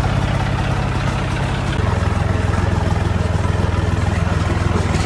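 John Deere 5055E tractor's three-cylinder diesel engine running steadily; about two seconds in, its note drops abruptly lower.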